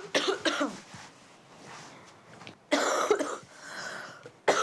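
A person coughs once, a sudden harsh burst about three seconds in, after brief voice sounds at the start.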